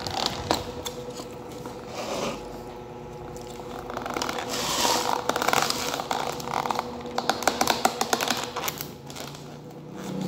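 Close-up eating sounds: cookie cake being picked at by hand and chewed, with scattered sharp clicks and a quick run of clicking about two-thirds of the way through.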